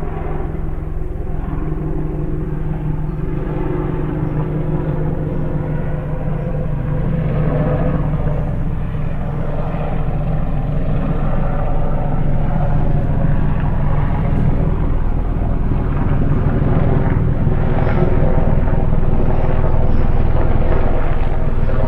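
Distant helicopter, its rotor and engine drone with a rapid fine beat, growing slowly louder.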